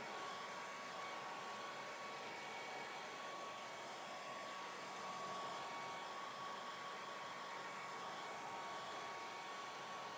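Handheld hair dryer running steadily: a hiss of blown air with a high, steady motor whine, drying a wet watercolour painting.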